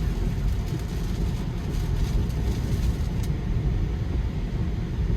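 Steady low road and tyre noise inside a Tesla's cabin while driving through a windy rainstorm on wet roads, with no engine note.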